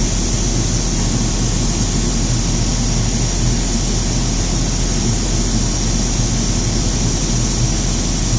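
Elgi air compressor running steadily at full load, an even machine drone with low hum and a constant high hiss; it is running hot on flushing oil to clean its cooler.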